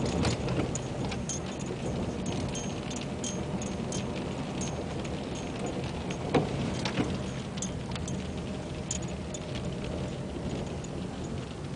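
Inside a slowly moving car: a steady low engine and tyre hum, with many scattered light ticks and clicks. A windshield wiper sweeps across the wet glass at the start and again about six seconds in.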